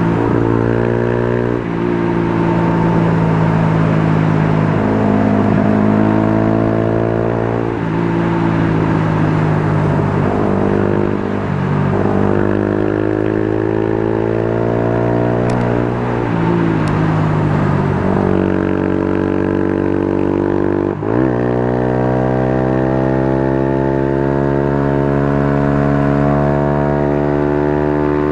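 Motorcycle engine pulling hard, repeatedly climbing in pitch as it accelerates and then dropping sharply at each gear change or roll-off, about five times over.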